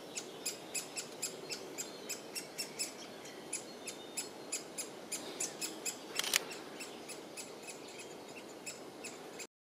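Great spotted woodpecker nestling begging from the nest hole: short, high calls repeated steadily at about four a second. One louder, sharper sound comes about six seconds in, and the sound cuts off suddenly near the end.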